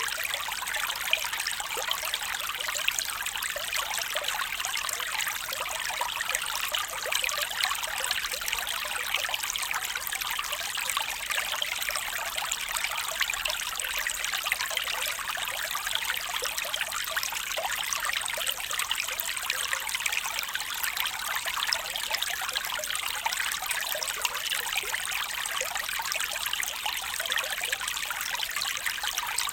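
Small stream trickling and burbling over stones, a steady flow of fine splashes and gurgles.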